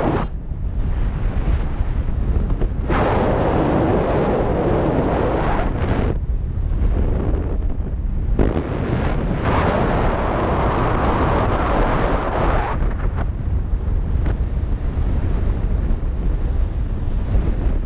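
Wind buffeting the camera microphone in paraglider flight: a steady low rumble, with two louder, hissier surges of a few seconds each, about three seconds in and again about ten seconds in.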